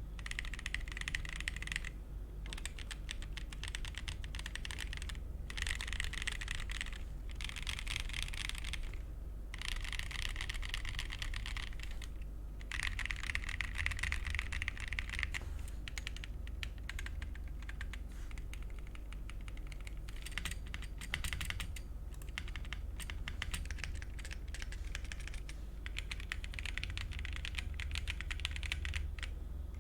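Fast typing on a MonsGeek M1 aluminium 75% mechanical keyboard with Akko CS POM Pink linear switches and XDA-profile PBT keycaps: rapid key clicks in bursts of a second or two with short pauses between.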